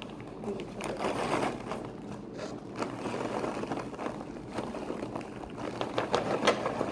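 Paper microwave popcorn bag being pulled open at the top, crinkling and rustling, then shaken with the freshly popped popcorn rattling inside, with sharper crackles near the end.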